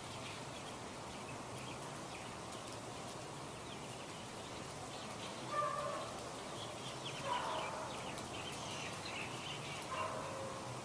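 Three short animal calls over a steady background hiss, the first about halfway through and the last near the end, with faint high chirps between them.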